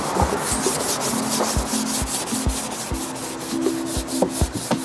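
A scrub pad rubbed back and forth over wet varnished wood, in even strokes about two or three a second, scouring off old varnish loosened by oven cleaner.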